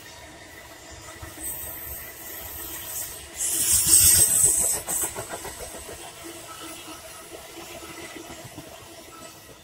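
Passenger train of stainless-steel coaches passing close by at speed, its wheels rumbling and clattering on the rails. A loud hissing rush of air comes a little before midway and lasts about a second and a half, and the sound then eases off gradually.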